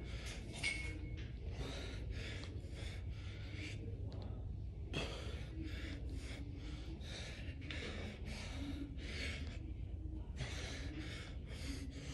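A man breathing hard and fast under the strain of barbell squats: quick breaths about two or three a second, in runs broken by short pauses, over a low steady hum.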